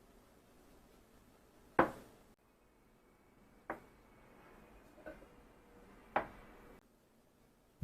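Four separate knocks of household objects being handled and set down, the first the loudest.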